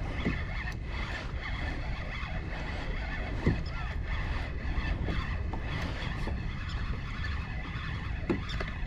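Water lapping against a plastic sit-on-top fishing kayak's hull, with wind on the microphone, and two light knocks on the hull: one about three and a half seconds in and one near the end.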